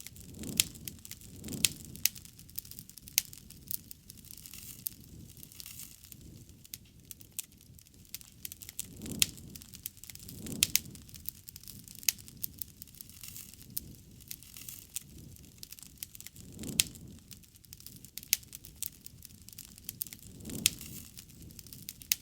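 Wood fire burning, crackling steadily with many sharp pops. A few soft, low surges of sound each last about a second.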